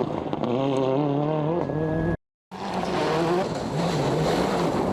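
Rally car engine at high revs, its pitch climbing and dropping with gear changes. The sound cuts out abruptly for a moment a little over two seconds in, then another rally car engine is heard running hard.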